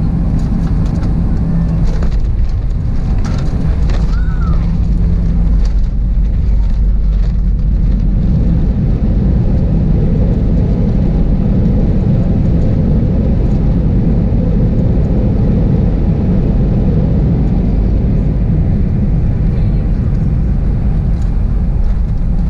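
Cabin noise of an Airbus A320-211 at touchdown and landing rollout: a few knocks about two to four seconds in, then the steady rumble of the engines and rushing air thickens from about six seconds in as the airliner slows on the runway with its ground spoilers raised.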